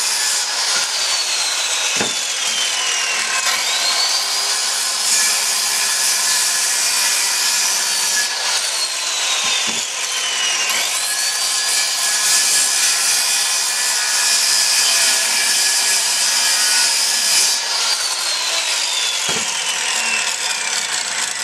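Corded circular saw making several trim cuts through thick glued-up plywood blocks. The saw's whine winds down each time the trigger is let go and spins back up for the next cut, about three times, with a few short knocks of wood between cuts.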